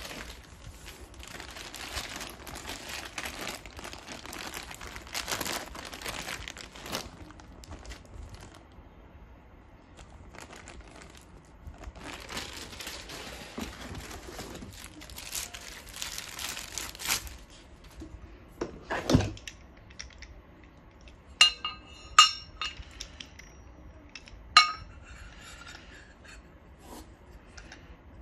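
Plastic bag of screws and bolts crinkling and rustling as it is handled, in two long stretches. Then a dull thud and a few sharp, ringing metallic clinks as black steel monitor-stand parts knock together.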